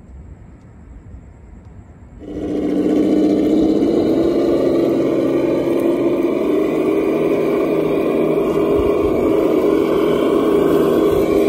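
RC scale crawler truck driving through grass: about two seconds in, a loud, steady engine-like drone starts and holds, shifting a little in pitch.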